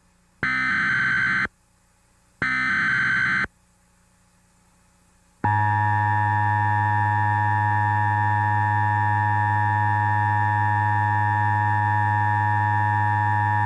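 Emergency Alert System alert start: two short bursts of warbling digital data tones, about a second each with a second's pause, which close the SAME header. About two seconds later the steady, buzzy two-tone attention signal comes in, holds for about eight seconds, then cuts off sharply.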